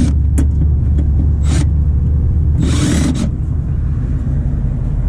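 Air-conditioning condensing unit running with a steady low hum, with a few short rustling, scraping noises as the cabinet is handled, the longest about three seconds in.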